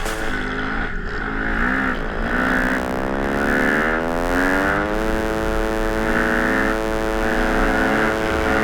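Dirt bike's four-stroke single-cylinder engine accelerating, its pitch climbing steadily for about four seconds and then holding steady at high revs.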